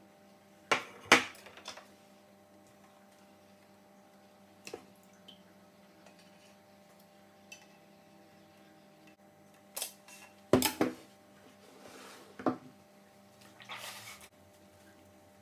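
Thermomix TM5 parts being handled: the plastic lid and stainless steel mixing bowl knock and clatter as they are taken off and set down, with a few sharp knocks, the loudest about a second in and about ten and a half seconds in. Near the end there is a softer wet squishing as the cloth bag of soybean pulp is squeezed over a jug.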